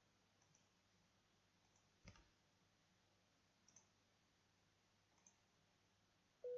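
Near silence with a few faint computer mouse clicks, the plainest about two seconds in. Right at the end a louder electronic tone starts.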